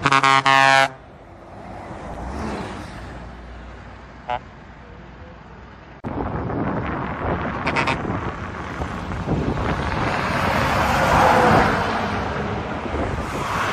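Bus horn blasting once for about a second, then traffic noise, with a brief high beep about four seconds in. From about six seconds a vehicle passes, growing loudest around eleven seconds in.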